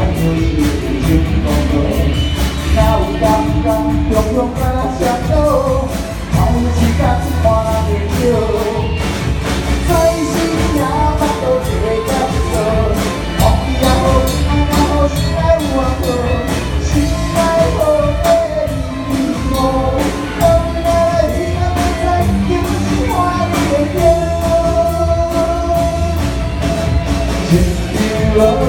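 Live band music: a melodic lead line over a steady beat of drums and bass, with a rock-pop feel.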